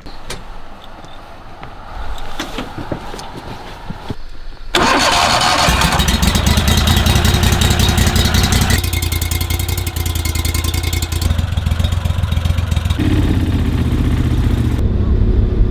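A tiller-steered boat motor starts suddenly about five seconds in and runs steadily, its note shifting a couple of times.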